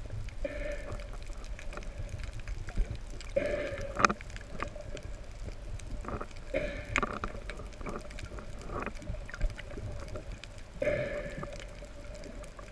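Underwater recording: a short, steady humming note with higher overtones, heard four times a few seconds apart, over a low rumble and scattered clicks. Its source is unknown; the diver wonders whether the manta ray is making it.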